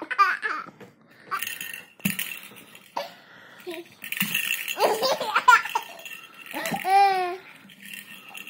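A toddler laughing and babbling in short bursts, with one longer sing-song squeal about seven seconds in. A couple of sharp clicks come from something being handled.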